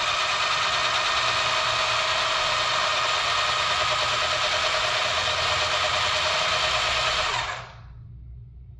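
Rastar 1/16-scale GMC Hummer EV RC truck's electric drive motors and geartrain spinning all four wheels in the air, a steady whir that winds down about seven and a half seconds in.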